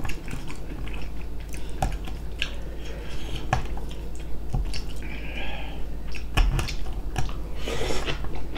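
Close-miked chewing and biting of food, with many short clicks of chopsticks against ceramic side-dish bowls scattered throughout.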